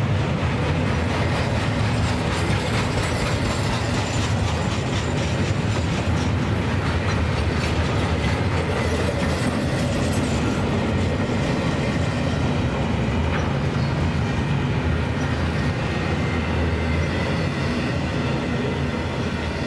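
Double-stack intermodal freight train rolling past at close range: steel wheels clattering over the rail joints under loaded container well cars. The level eases slightly as the last car goes by near the end.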